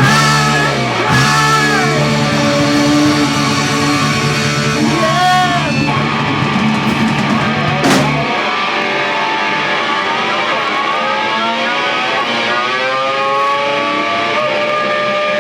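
Rock music led by electric guitar. Held notes sit over a low bass until about eight seconds in, where there is a sharp click and the bass stops. After that the guitar notes slide and bend up and down in pitch.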